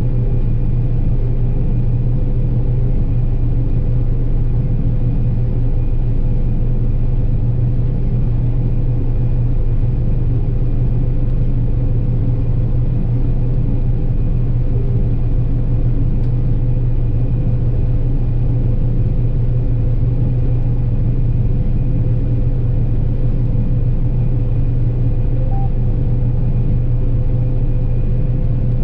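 John Deere 9770 combine harvesting soybeans: a steady diesel engine drone with a constant whine from the running machinery over it.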